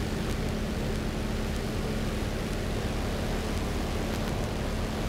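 Cessna 182's piston engine and propeller running steadily in flight, heard from inside the cabin as a constant hum with a steady low tone under rushing air noise.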